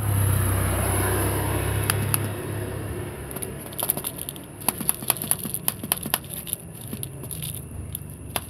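Dry cat food pellets rattling out of a plastic bottle and clicking onto a concrete floor: a rapid, irregular run of small clicks through the second half. A steady low hum sits under the first two seconds or so.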